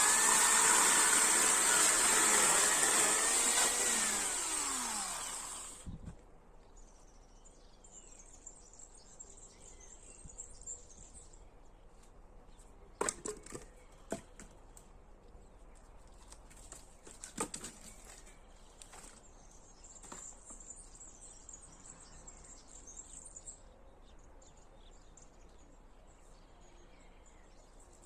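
Chainsaw running loudly, then winding down and stopping about six seconds in. Afterwards insects chirp in the background, with a few sharp knocks in the middle.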